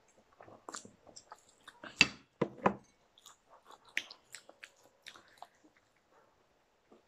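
Close-miked chewing and biting on fried chicken leg pieces: scattered short clicks and smacks of mouth and food. A few louder, sharper knocks or crunches come about two seconds in.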